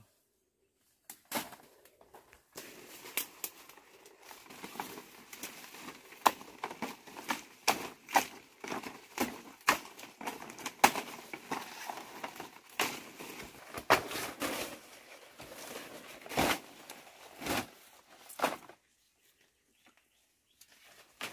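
Dong leaves and their stems rustling and crackling as they are gathered by hand in undergrowth, with many irregular sharp snaps. It starts about a second in and stops a couple of seconds before the end.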